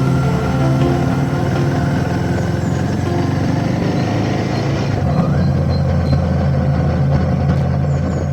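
Motorcycle engine running steadily while riding, its pitch shifting about five seconds in.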